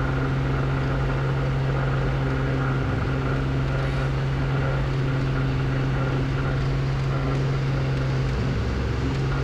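Cessna T210N Centurion's turbocharged six-cylinder engine and propeller at full takeoff power, 2700 RPM and 34.4 inches of manifold pressure, a steady drone through the takeoff roll, heard over the cockpit intercom audio feed. The engine is freshly top-overhauled and being broken in, run high and rich.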